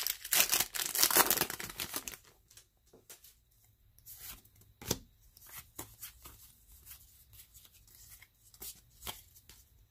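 A foil trading-card booster pack wrapper crinkles and tears open for about two seconds. Then comes the quieter rustle and clicking of the cards being slid out and handled, with a sharper snap about five seconds in.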